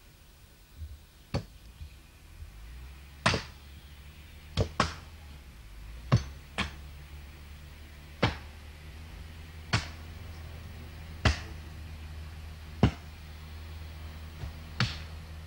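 Sharp single knocks of blows being struck, about one every one and a half seconds, over a tractor engine running with a low steady hum that sets in a couple of seconds in.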